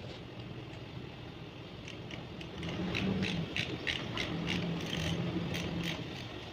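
Ratchet wrench clicking as it turns a bolt, about three clicks a second from about two seconds in.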